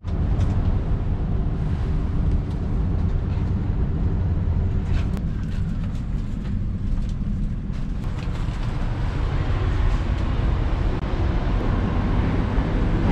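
Steady low rumble of a passenger train car's interior, with a few faint clicks in the middle.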